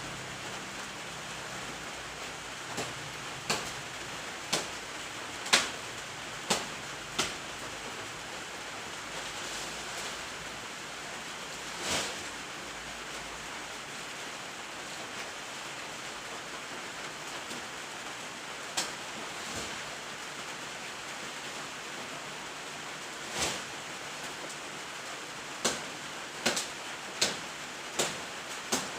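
Steady hiss of rain with about fifteen sharp, irregular knocks, several of them bunched near the end.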